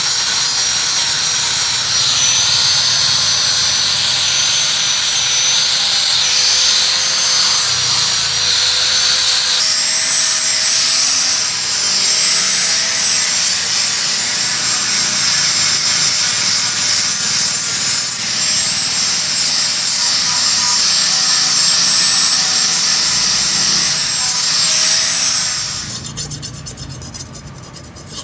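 Electric grinder running steadily against a steel blade, its motor pitch wavering as the load changes. Near the end it stops, and hand filing starts as a quick rhythmic scraping.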